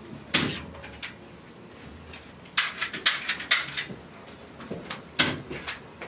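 A series of sharp taps and knocks: one near the start, another about a second in, a quick cluster of them in the middle, and two more near the end.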